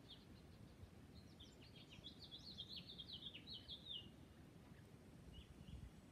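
A small songbird singing faintly: a quick jumbled run of high chirping notes starts about a second in and lasts around three seconds, with a few single notes before and after, over a low rumble of wind.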